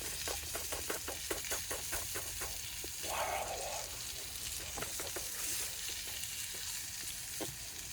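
Potatoes frying on a hot Blackstone 17-inch propane flat-top griddle: a steady sizzle, with a quick run of crackling clicks over the first three seconds and a few single pops later.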